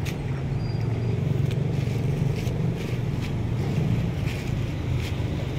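A thin plastic bag crackles and scrapes in short bursts as it is handled and grabbed off wet concrete. A steady low rumble runs underneath and is the loudest sound.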